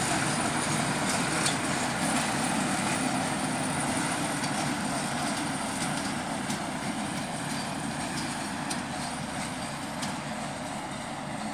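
ChME3 diesel-electric shunting locomotive hauling a train of hopper wagons past, the engine running and the wheels clicking on the rails, fading steadily as the train moves away.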